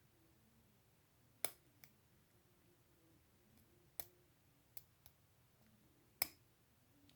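Faint, scattered metallic clicks of a lock pick working the pins of an Abus 72/40 padlock: about six short clicks, the loudest a second and a half in and again near the end.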